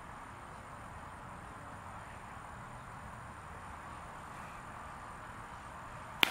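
A single sharp crack about six seconds in, which is a wooden bat hitting the ball, over a steady low background of outdoor noise.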